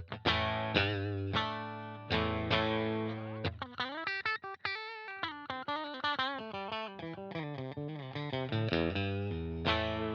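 JCraft LSX-1 electric guitar with humbucking pickups played through an amp. It opens with strummed chords, switches to a single-note lead line with bends and vibrato about three and a half seconds in, and returns to chords near the end.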